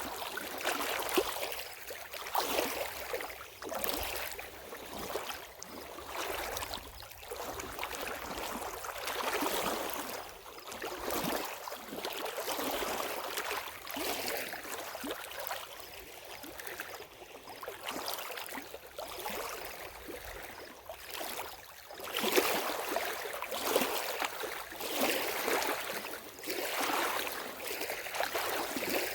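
Lake water lapping and splashing at the shore in uneven surges about a second apart, louder for a stretch near the end.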